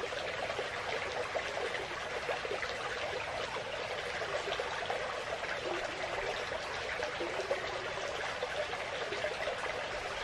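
Creek water steadily trickling and babbling over a shallow riffle.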